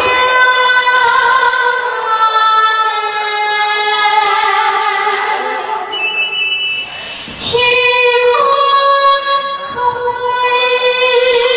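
A woman singing into a handheld microphone, holding long sustained notes, with a short break for breath about seven seconds in.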